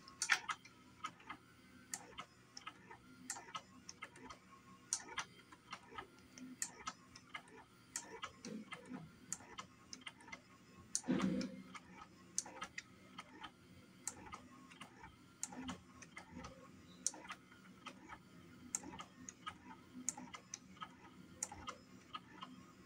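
Sansui SE-9 Compu-Equalizer's motor-driven slider mechanism resetting all the graphic-EQ sliders to flat, with irregular light ticks and clicks as it moves along and pushes each slider into position. There is a louder knock about halfway through.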